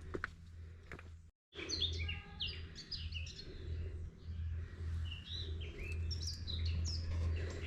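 A chorus of songbirds, many short, rapid chirps and trilled phrases overlapping, loud and busy. The sound cuts out completely for a moment about a second in, and a steady low hum runs underneath.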